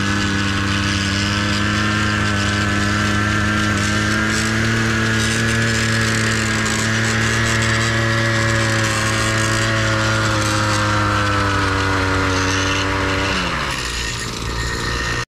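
Small petrol mini tiller's engine running steadily at working speed while it churns the soil. Near the end its pitch drops sharply as the engine slows down.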